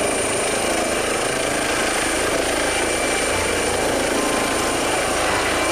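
Helicopter sound effect: steady rotor and engine noise with a constant high whine.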